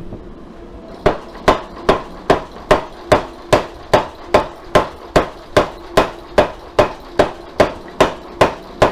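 Power hammer striking a hot San Mai billet of 52100 and A203 steel in a steady run of about twenty blows, roughly two and a half a second, each with a short ring, starting about a second in: the blows set the forge weld of the billet.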